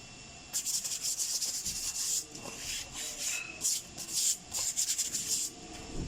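Rubbing or scrubbing strokes in quick, irregular bursts, like sanding.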